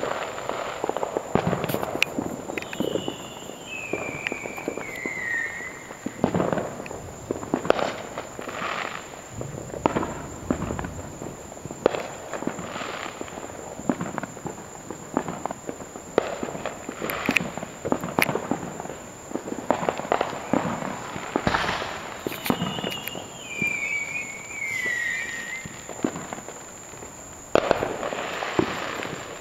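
Fireworks going off: scattered bangs and pops at irregular intervals. Twice a high whistle falls and warbles over a few seconds, with a steady high-pitched tone underneath.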